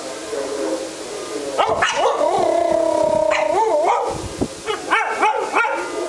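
A dog yipping and howling, distressed by tornado sirens. A few sharp yips come about a second and a half in, then long howls that waver up and down in pitch, a second bout near the end.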